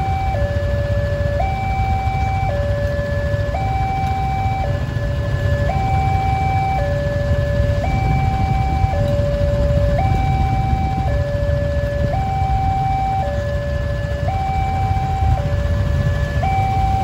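Railway level-crossing warning alarm sounding a steady electronic two-tone signal, switching between a low and a high tone about once a second. Under it is a constant low rumble of idling motorcycle and car engines in the waiting traffic.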